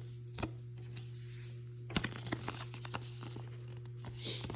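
Trading cards and plastic card sleeves being handled: a single click about half a second in, then soft plastic rustling and small clicks through the second half, over a steady low hum.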